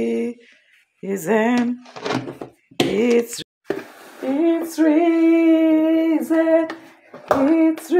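A woman singing unaccompanied in short phrases, then holding one long note through much of the second half.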